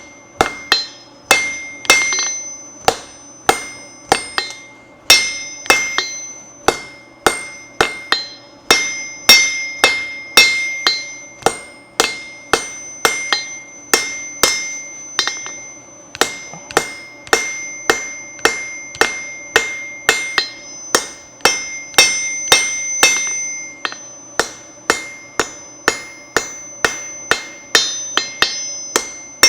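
Blacksmith's hand hammer striking hot flat-bar steel on an anvil, about two blows a second with a few short pauses, each blow followed by a bright metallic ring. The blows are forging a knife point, aimed just behind the corner to push the metal forward without fish mouth.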